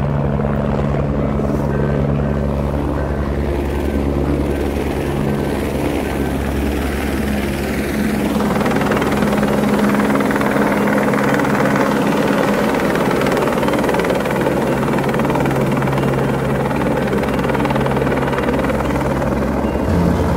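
Single-engine helicopter in flight: a steady rotor and turbine drone that gets louder and fuller about eight seconds in as the helicopter comes closer.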